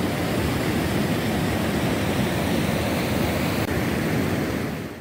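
Floodwater rushing over a breached road, a steady, loud noise of flowing water that cuts off abruptly at the end.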